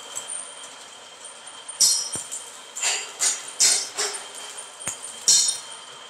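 Stick arc welding on a steel concrete-mixer drum: a run of short crackling bursts as tack welds are struck, mixed with a few sharp metallic clicks. A faint steady high tone runs underneath.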